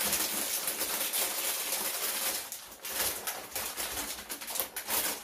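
Crinkly plastic bag rustling and crackling as hands rummage in it and handle it: a dense, continuous run of small crackles.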